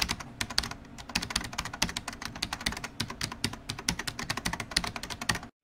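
Fast keyboard-typing clicks, a typing sound effect, at roughly ten keystrokes a second, stopping abruptly near the end.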